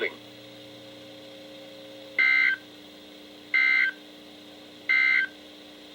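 NOAA Weather Radio's SAME end-of-message data bursts: three short, shrill digital warbles about 1.4 seconds apart, each about a third of a second long. They mark the end of the severe thunderstorm warning broadcast. A low steady hum from the receiver runs beneath them.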